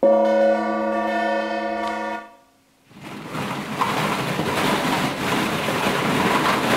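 A hanging gong struck once with a mallet, ringing with many overlapping tones for about two seconds before cutting off abruptly. After a short gap, a steady rushing noise from an unseen source starts about three seconds in.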